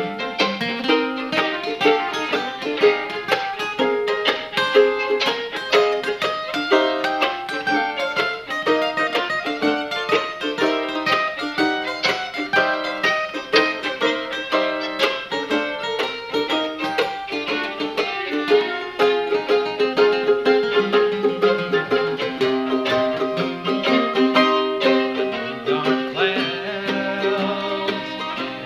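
Bluegrass music played live on mandolin, acoustic guitar and fiddle together: quick picked mandolin and guitar notes under bowed fiddle lines, with longer held notes coming forward in the second half.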